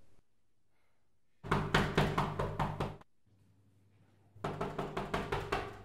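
Rapid knocking on a door, several quick strokes a second, in two bouts with a pause between.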